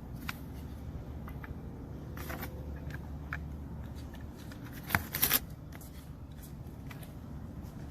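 Small clicks and rattles of plastic and metal door-handle parts being handled and fitted together by hand, with a sharper cluster of clicks about five seconds in, over a steady low hum.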